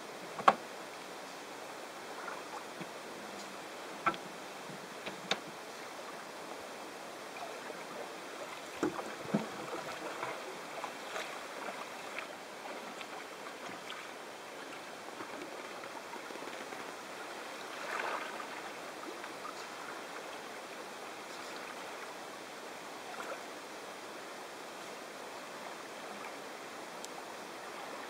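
Calm sea water lapping steadily at the shore, with a few sharp knocks in the first ten seconds as the cedar-strip sea kayak is launched. After that come scattered soft splashes of the kayak paddle, the most noticeable about two-thirds of the way through.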